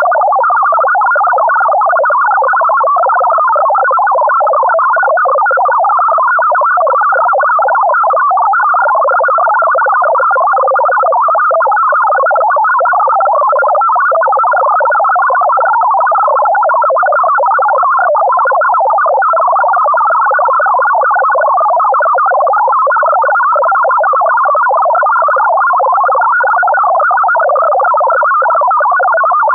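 MFSK64 digital data signal sent at 1000 Hz: a continuous, loud warble of many short tones changing rapidly, the data being encoded for listeners to decode.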